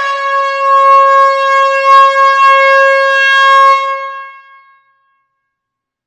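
Air horn in an enclosed hall giving one long steady blast of about four seconds, dipping slightly in pitch at the very start, then dying away.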